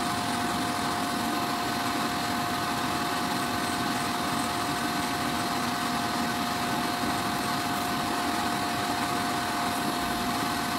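Electric podiatry drill with a fine burr running at constant speed, a steady whine over a hiss, as it grinds down thick heel callus.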